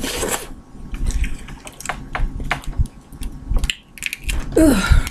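Boiled crawfish being cracked and peeled by hand close to the microphone: an irregular run of wet crackles, snaps and squishes as the shell is pulled apart. A brief vocal sound near the end.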